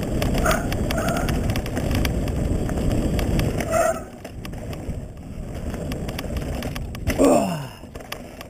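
Mountain bike rolling fast down a loose, rocky dirt trail: tyres crunching over stones and the bike rattling with many small knocks. About seven seconds in, a short tone slides down in pitch.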